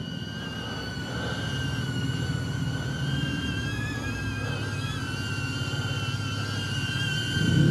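Small quadcopter drone (HoverAir X1) flying back in, its propellers whining in a steady high hum over a low rumble. The hum grows louder over the first couple of seconds, then holds.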